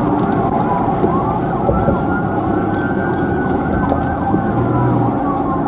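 Several emergency-vehicle sirens sounding at once, overlapping wails and quick yelps that rise and fall continuously, over a steady low rumble.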